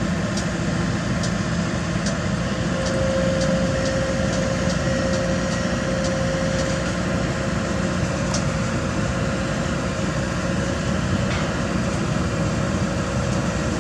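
Kobelco SK200 hydraulic excavator's diesel engine running steadily under working load, with a steady whine coming in for a few seconds partway through and a few faint ticks.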